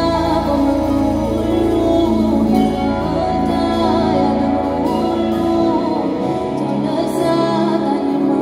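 Live band music amplified through a concert PA, with a woman singing over it. The deep bass drops out about six seconds in.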